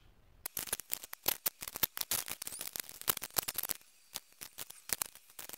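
Rapid run of small plastic clicks and scrapes as an electrical connector on the injector wiring is handled with gloved hands, thinning to a few scattered clicks after about four seconds.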